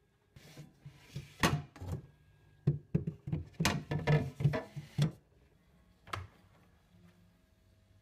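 Plastic parts of an Igenix IG350R under-counter fridge being handled: a quick run of clicks, knocks and rattles as the clear salad crisper drawer is moved, then a single click about six seconds in as the freezer compartment is reached.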